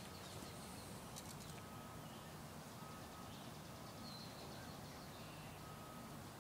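Quiet outdoor ambience: a low steady background hiss with a few faint, scattered bird chirps.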